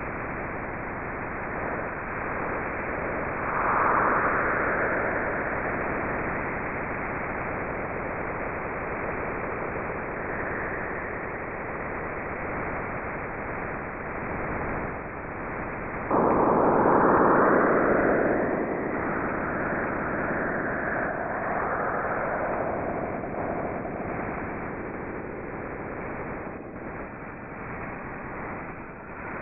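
Sonified spacecraft radio and plasma-wave data: a steady hiss with a swell about 4 seconds in, then a sudden, louder surge of sweeping, whooshing tones about 16 seconds in that fades over the next several seconds.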